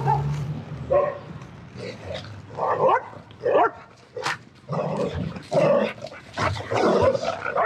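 Dogs barking repeatedly in short, irregular barks, with a sharp click about four seconds in.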